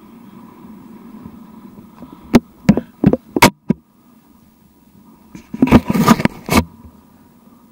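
Skis sliding over snow, with a quick run of five sharp knocks a little over two seconds in and about a second of loud rough scraping near the end.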